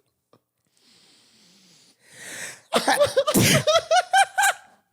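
A person sneezes from snorting ground pepper: a sharp breath in, then one loud, sudden sneeze, followed by a quick run of short laughs.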